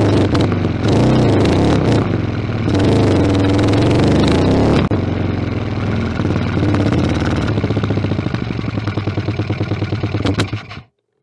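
Intake noise of a Suzuki DR 600's single-cylinder four-stroke engine, heard from inside its air box as air is sucked through to the engine while riding. It is loud under throttle for the first five seconds, then softer, breaking into distinct separate pulses, and stops abruptly near the end.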